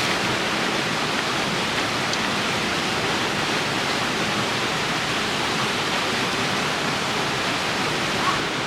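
Steady rush of a waterfall pouring into a rock pool, an even, unbroken roar of falling water.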